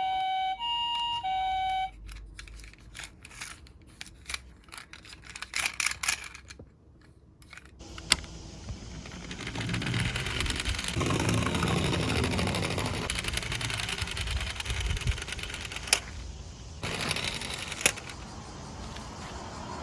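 A toy ambulance's electronic two-tone siren cuts off about two seconds in, followed by clicks of the toy being handled. From about eight seconds a toy minicar rolls along a plastic slope with a steady rattling rumble, and a couple of sharp clicks come near the end.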